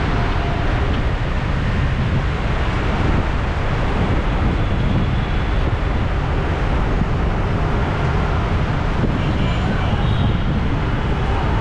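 Steady road traffic noise, a continuous din of vehicles that runs on evenly without breaks.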